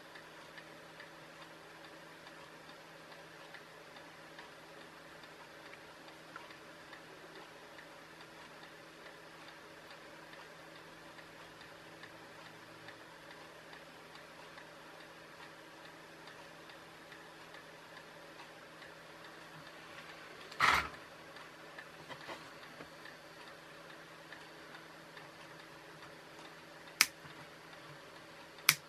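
Faint steady hum with a few light clicks, then a short loud clatter about two-thirds of the way in. Near the end come two sharp snips of flush-cut side cutters trimming component leads on a small circuit board.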